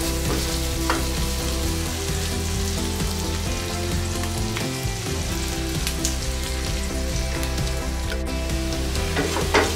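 Chopped onions and bay leaves sizzling steadily as they fry in hot oil in a kadai, with a few scrapes and taps of a wooden spatula stirring them.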